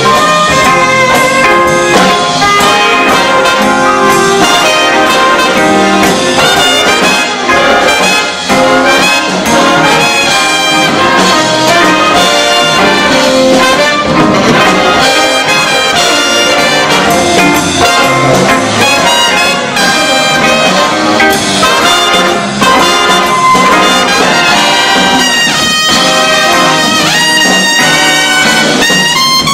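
Jazz big band playing loud and dense, trumpets and trombones to the fore, with a tenor saxophone soloing over the band.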